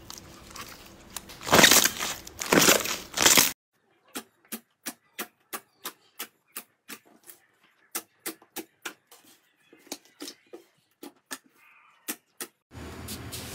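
Slime being stretched, with two loud rushes of crackling noise in the first few seconds. Then clear jelly slime pressed with the fingertips makes crisp popping clicks, about three a second.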